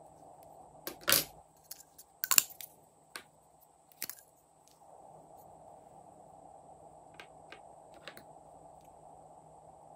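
Sharp clicks and knocks from handling plastic lipstick tubes, the loudest two in the first few seconds and one about four seconds in as a tube's cap comes off. Lighter ticks follow near the end over a faint steady hum.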